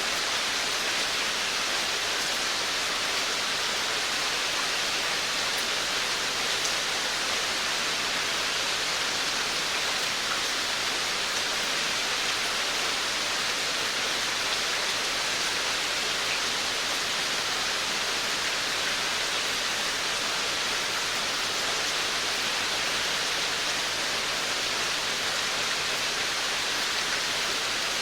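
Steady rain falling on a veranda, a dense, even hiss with faint scattered drips.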